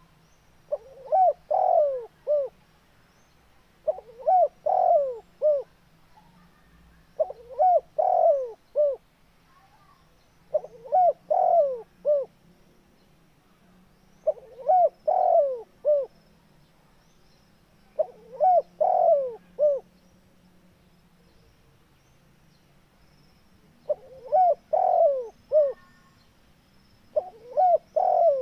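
Spotted dove cooing its phrase of a few short notes, repeated eight times about every three and a half seconds, with a longer pause before the last two.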